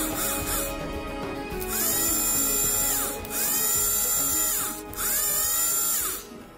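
Restored motorcycle starter motor spinning with no load on the bench, powered in three short bursts: each time a high whine rises as it spins up, holds, then falls away as it coasts down.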